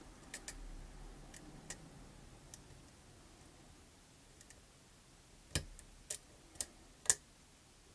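Small clicks of a lock pick working the pins at the back of a long keyway in a challenge lock. A few faint ticks come in the first seconds, then four sharper clicks about half a second apart after five seconds in.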